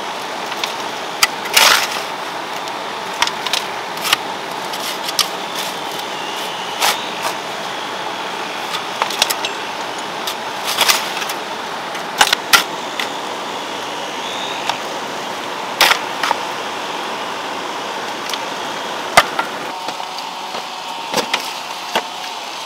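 A hand hoe chopping and scraping into stony soil: irregular sharp knocks every second or two over a steady background hiss.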